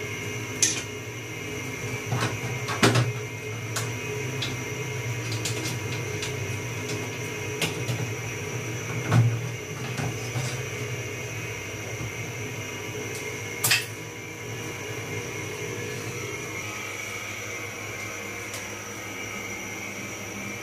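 Plastic clicks, knocks and snaps from the casing and front panel of a split-type air-conditioner indoor unit being handled and pried apart, scattered and irregular over a steady low hum.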